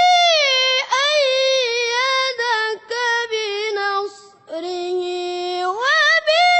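Melodic Quran recitation in a single high-pitched voice, drawing out long, ornamented notes that waver and slide in pitch, with a brief breath-break about four seconds in before a lower held note that rises again near the end.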